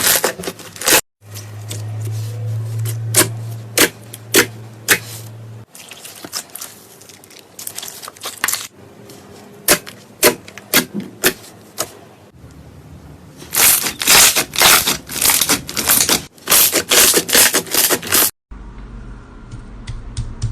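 Slime being squeezed and pressed in a series of short clips, crackling with quick runs of crisp clicks and pops. Each clip cuts off abruptly, and a low steady hum sits under one of the early clips.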